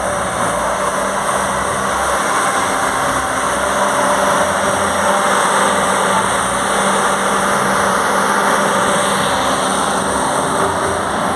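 Large diesel generator set, mounted in a truck's cargo box, running steadily at a constant, even engine note.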